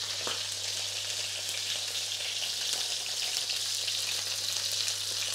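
Beef steak searing in ghee in a hot pan: a steady sizzle with small pops and crackles as the fat renders.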